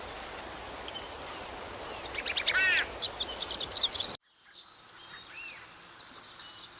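Outdoor nature ambience: insects trilling steadily, with birds chirping a few falling notes midway. Just past the middle it cuts suddenly to a quieter bed of short repeated chirps.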